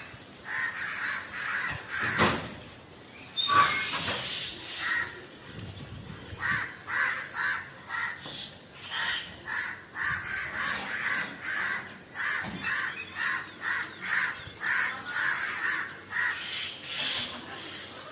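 Birds calling in a long run of short, harsh, repeated calls, about two a second, with a couple of louder knocks between two and four seconds in.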